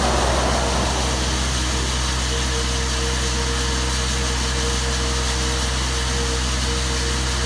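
Diesel-powered core drilling rig with a two-speed hydraulic motor running steadily, with a constant hum and a held mid-pitched tone, while its core barrel drills into the asphalt under a water flush.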